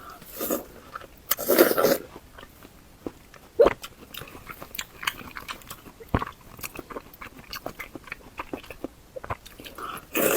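Close-miked eating sounds: a person biting and chewing spicy mala bullfrog, with scattered wet mouth clicks. Louder bites come about half a second in, around a second and a half, once sharply near four seconds, and again near the end.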